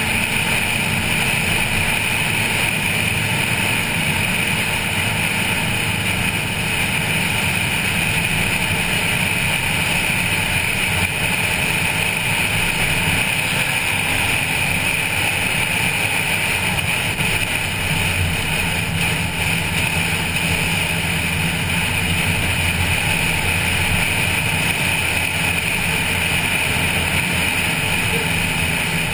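Wind rushing over a roof-mounted camera, with the Honda Civic 1.5's engine running hard underneath, a steady drone at track speed. The engine note grows stronger about eighteen seconds in.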